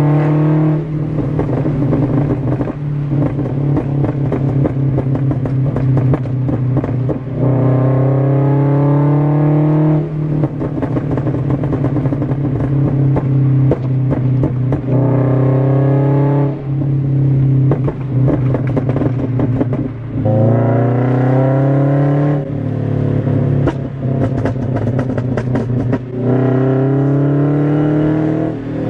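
Scion FR-S flat-four engine with a pop-and-bang backfire tune, accelerating hard through the gears. The pitch climbs in each gear and drops back at each of several shifts, over a steady crackle of exhaust pops.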